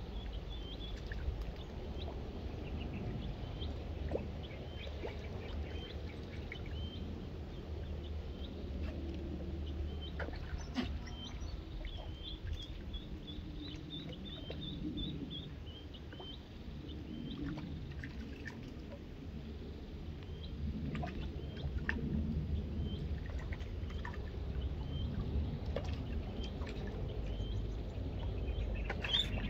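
A duckling used as live snakehead bait peeping in short high chirps, about one a second, with a quick run of chirps near the middle.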